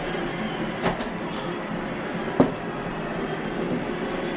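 Vacuum cleaner running with a steady mechanical hum, with two sharp knocks, the second and louder about two and a half seconds in.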